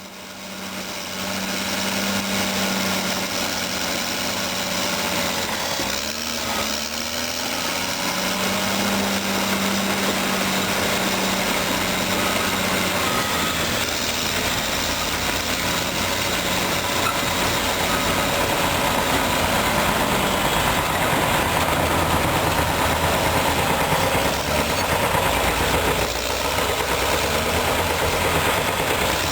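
Caterpillar D6R bulldozer's diesel engine running steadily as the machine works, its pitch wavering a little. The sound fades in over the first couple of seconds.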